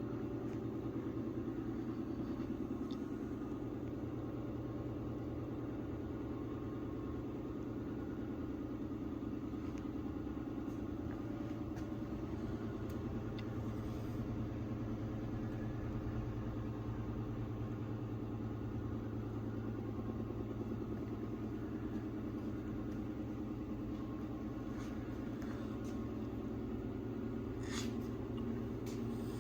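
A 1979 Honda CR250's two-stroke single-cylinder engine running at a steady speed, without revving.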